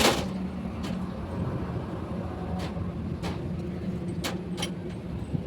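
A steady low engine-like hum, with several sharp knocks or clicks spaced irregularly over it.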